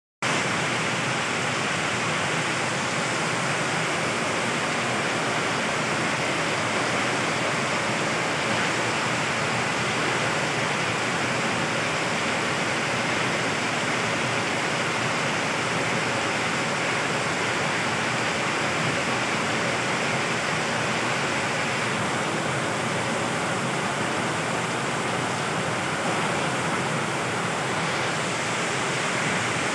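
Heavy rain pouring down in a steady, even rush that does not let up.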